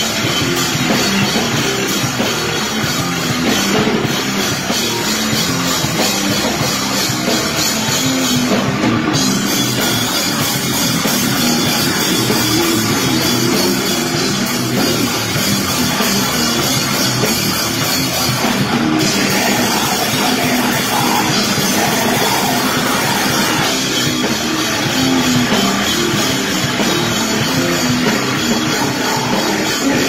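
A live heavy rock band playing loud, with electric guitar and a drum kit, heard through a phone's microphone close to the stage.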